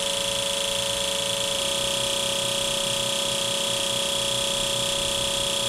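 Fuel injector test bench running a flow test at simulated high engine speed, its injectors pulsing rapidly as its pump runs. The result is a steady buzzing hum with a high-pitched whine.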